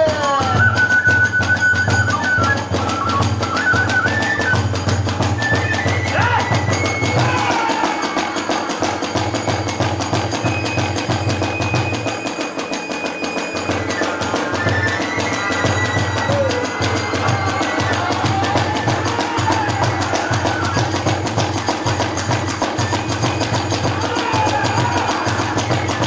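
Hiroshima kagura hayashi in the fast hachōchō style: large and small taiko drums beating a quick, steady rhythm with tebiragane hand cymbals, under a gliding bamboo fue flute melody.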